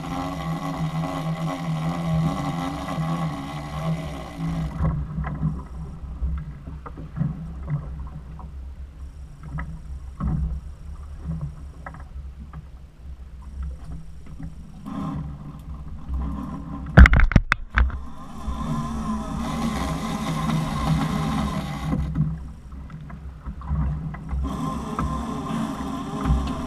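A boat's engine running steadily, with scattered knocks and one loud brief thump about two-thirds of the way through.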